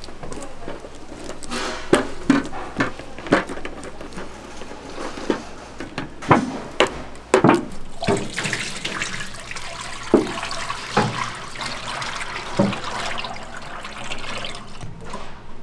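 Commercial kitchen work: a run of sharp knocks and clatters from utensils and containers, with a steady rushing hiss from about eight to fourteen seconds in.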